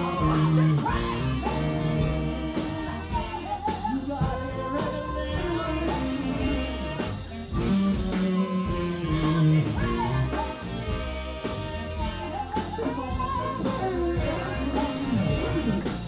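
Live band playing a song: women singing lead and backing vocals over electric guitar, bass, keyboards and a drum kit, with a steady beat.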